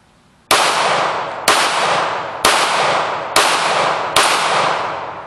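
Five shots from a Ruger SR40 semi-automatic pistol in .40 S&W, fired about one a second. Each report is followed by a long echo that is still dying away when the next shot comes.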